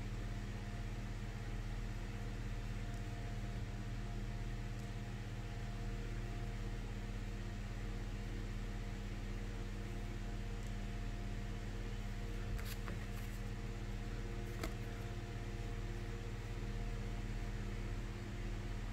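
Steady low electrical hum with a constant hiss, as from a fan or appliance motor, with two faint clicks a little past the middle.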